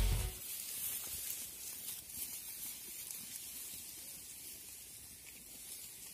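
Intro music cuts off right at the start, leaving a faint, steady outdoor hiss.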